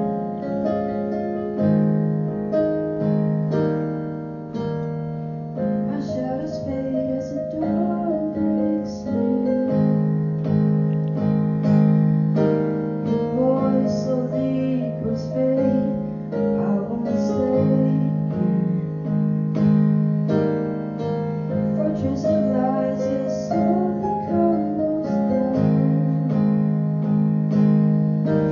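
Raw recording of a song: keyboard playing sustained piano chords, with a voice singing a melody over them from about six seconds in.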